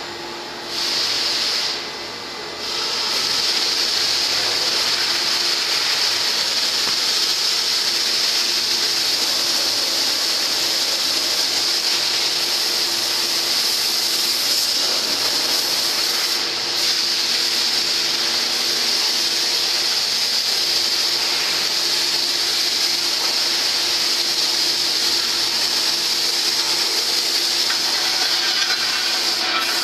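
Steady, loud hiss of gas blowing at a tilting aluminium melting furnace. It cuts in about a second in, breaks off briefly, then runs on continuously over a faint low machine hum.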